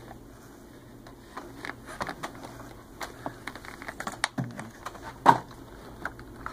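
Hands handling a Rug Doctor carpet cleaner's pump, wiring and plastic fittings: a run of small clicks and rattles from about a second and a half in, with one sharp, louder click about five seconds in.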